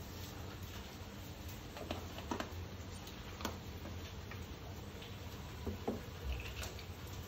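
Nigella seeds (kalo jeera) frying in hot oil in a pan, giving a handful of scattered crackles and pops over a low steady hum.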